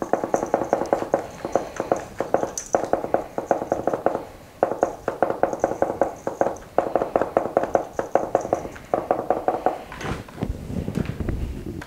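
A seasoning shaker shaken over raw chicken wings, rattling rapidly in about six bursts of a second or two each with short pauses between them. A quieter rustle follows near the end.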